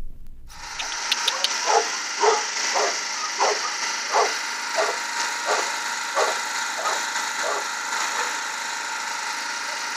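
Dog barking in a steady series, about three barks every two seconds, over a constant high-pitched background drone.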